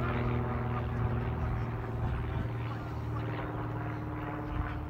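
A steady engine drone holding one pitch, easing off slightly toward the end.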